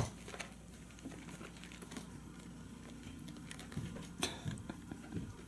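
Faint rustling and scratching of kittens' claws on fabric trousers as they wrestle on a lap, with scattered light taps, one a little sharper about four seconds in.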